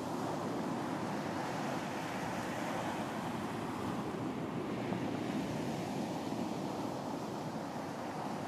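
Sea surf washing steadily onto a beach, a continuous rushing noise that swells and eases slightly.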